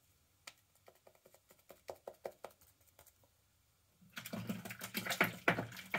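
Synthetic shaving brush working soap lather on the face, making a quick run of soft, crackly clicks. About four seconds in, a louder rushing noise takes over.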